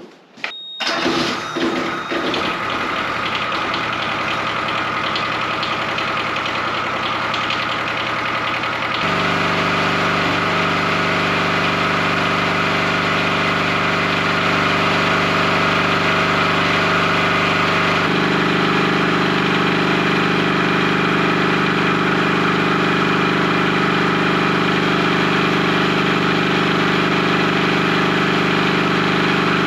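Kubota engine of a home-built DC generator starting about a second in and running steadily. It is on a test run to see whether the new secondary cooling system's pump moves water and whether the system leaks. Its note steps up and gets louder about nine seconds in, and shifts again at about eighteen seconds.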